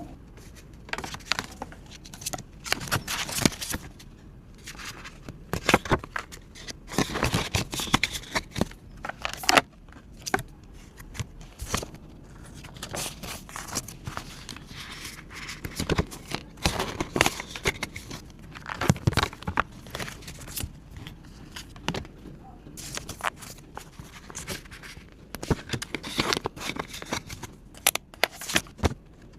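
Paper banknotes and paper savings supplies being handled close up: irregular rustling and crinkling with sharp clicks and brief scraping.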